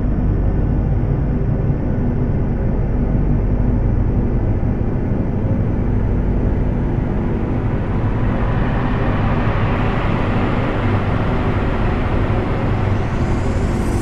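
Mountain stream and small waterfall rushing over rocks: a loud, steady rushing noise that grows brighter and hissier from about halfway through.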